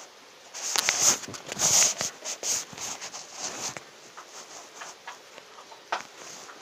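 Rustling and scattered light knocks, loudest in a burst between about one and three seconds in, with a sharp click near the end: handling noise from a phone camera being swung about.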